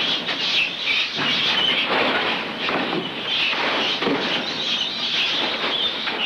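Farmed mink squealing and chattering in wire-mesh cages, short high squeaks over a steady rough clatter.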